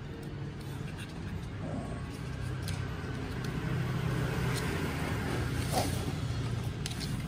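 A steady low engine hum, like a motor vehicle running, growing somewhat louder through the middle, with a few faint clicks over it.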